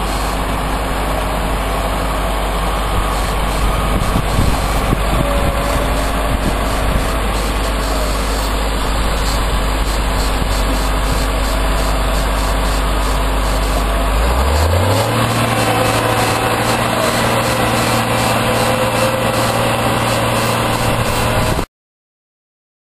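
Caterpillar AP1055D tracked asphalt paver's diesel engine running as the machine moves on a lowboy trailer. About two-thirds of the way through, the engine speed rises to a higher, steady pitch, and the sound cuts off suddenly near the end.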